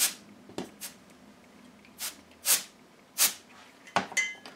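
Short puffs of compressed air from a can of canned air, blowing alcohol ink across Yupo paper. There are about half a dozen brief hisses, the strongest near the start and at roughly two, two and a half, three and a quarter and four seconds in.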